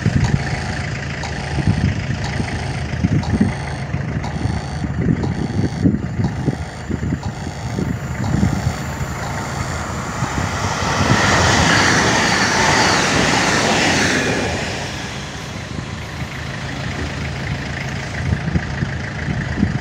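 Electric multiple unit (ED78, a Newag Impuls) passing on the main line: a rush of wheel and rail noise that swells about ten seconds in, peaks for a few seconds, then fades.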